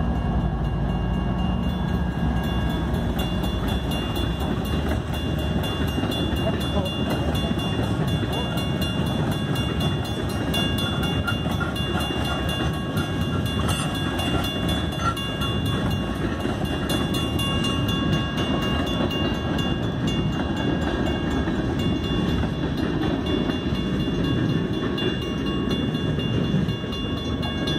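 Canadian Pacific freight train passing through a grade crossing: a diesel locomotive's engine briefly at the start, then the steady rumble and clatter of freight cars rolling over the rails. The crossing's mechanical bell rings throughout, with the warning lights active.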